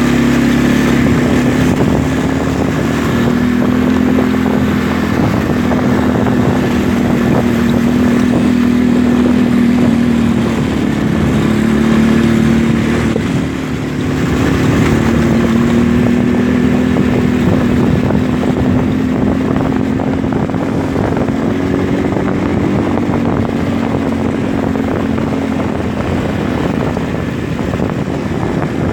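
ATV engine running steadily under way, its pitch rising and falling gently with the throttle, over a steady rushing noise. The level dips briefly about halfway through.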